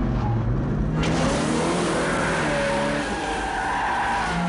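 Car-chase sound effects on a film soundtrack: an engine running hard with its pitch rising and falling, and tyres squealing. A rush of noise cuts in about a second in.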